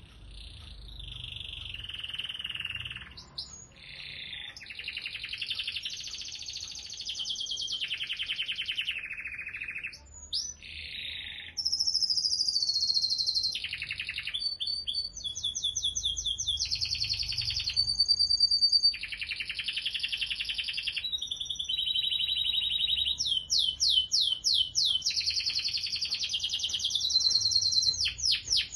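Canary singing a long, unbroken song of changing phrases: fast trills, quick runs of repeated rising notes, and a few held whistled tones.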